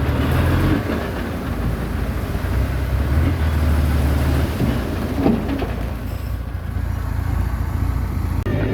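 Small bulldozer's diesel engine running steadily under work, with a brief squeal about five seconds in.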